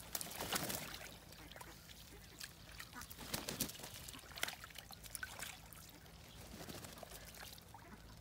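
Ducks splashing about in a small concrete pool of water, with a burst of splashing from a duck flapping its wings in the water about half a second in and more splashes a few seconds later.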